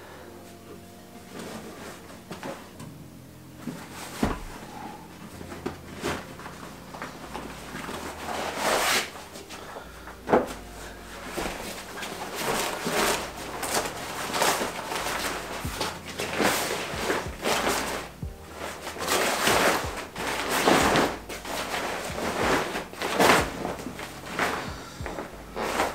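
A cabinet door being opened and a few knocks, then a Jurtenland bivy sack being pulled out, unrolled and spread on the floor: repeated fabric rustling and flapping that gets busier and louder from about a third of the way in.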